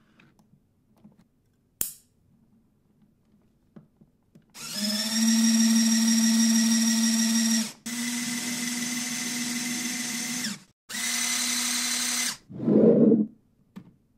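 Lego Technic Powered Up Large motors driving the excavator's peristaltic pumps give a steady electric whine in three runs of about three seconds each, the first the loudest. The pumps are pushing air, not fluid, which works the cylinders only poorly. A single click comes about two seconds in, and a short lower rushing sound follows the last run.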